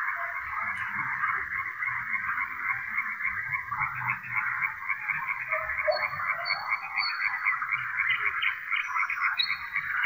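A dense, continuous chorus of frogs croaking. A nightingale's short, clear whistled notes ring out above it in the second half.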